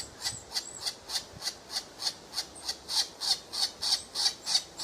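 A woodpecker calling a short harsh note over and over, about three times a second, getting slightly louder toward the end.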